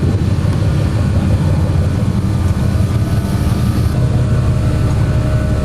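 Steady low drone of a boat's engine running.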